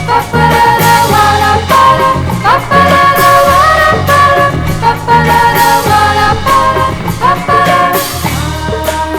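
A Brazilian popular song playing from a vinyl record: the band plays an instrumental passage between sung lines, with held melody notes over bass and a steady rhythm.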